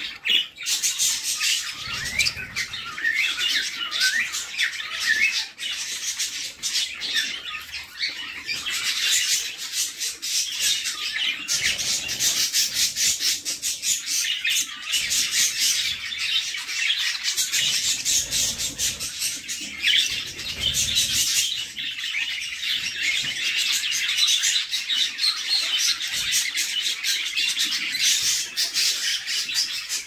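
Budgerigar chicks begging in the nest box, a rapid, high-pitched chirping that swells in bursts as the hen feeds them, with occasional soft shuffling in the bedding.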